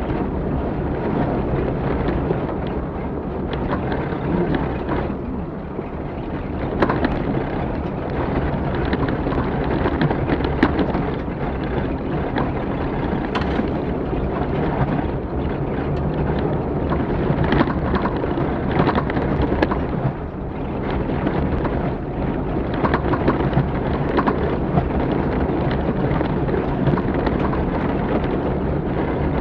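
Off-road rally vehicle driving hard over rough ground, heard from on board: a continuous engine and road rumble with many knocks and rattles over the bumps.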